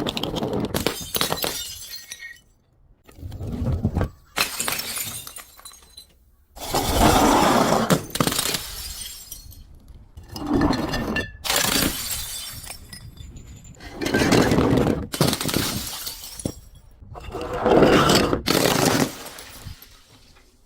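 Glass being broken and crushed, shattering and crunching in a series of about six bursts with short pauses between.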